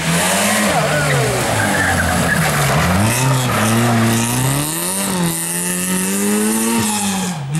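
Rally car driven hard on a special stage: its engine revs climb and drop several times as it changes gear and lifts, over a steady haze of tyre and road noise. The sound changes abruptly at the very end.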